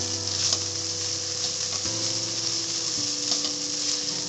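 Sliced okra sizzling in hot oil in a kadhai, sautéed on a low flame while a wooden spatula stirs it and scrapes the pan, with a steady hiss.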